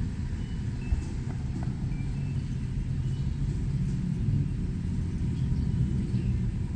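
Road traffic rumbling close by, with a vehicle engine's hum growing louder about four seconds in. A few faint, short, high chirps sound above it.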